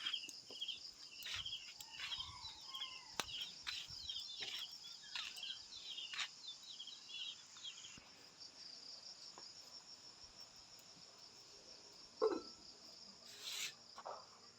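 Steady, high insect trilling with short repeated chirps through the first half, and scattered light clicks and knocks. A louder knock comes near the end.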